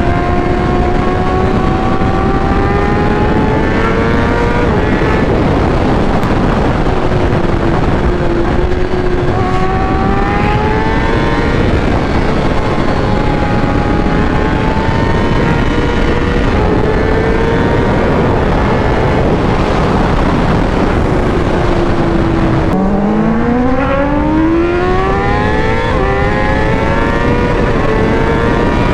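Superbike engine pulling under hard acceleration, its pitch climbing steadily and dropping back at each upshift, several times over, above a constant rush of wind and road noise. Near the end the pitch falls sharply, then climbs quickly again.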